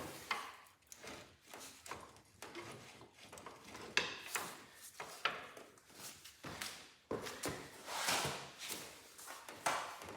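Irregular knocks, clunks and scraping as a Cub Cadet garden tractor transmission is wiggled and shifted into place to engage the drive shaft.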